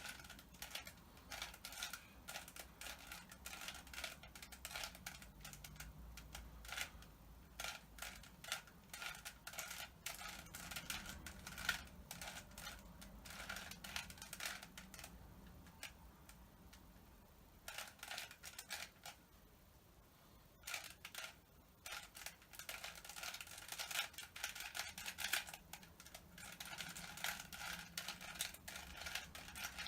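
Rubik's cube being turned by hand: quick runs of clicking as its plastic layers rotate, broken by short pauses about halfway through.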